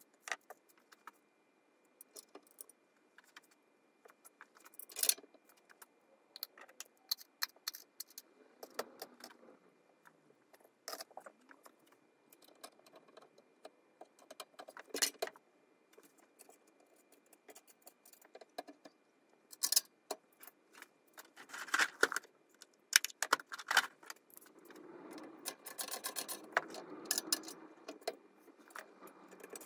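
Small metal hardware and tools clinking and knocking against the moped frame and engine by hand, in scattered sharp clicks with a few louder knocks, as a Puch Maxi E50 engine is being fitted into its frame. Near the end the handling becomes denser, with rougher scraping.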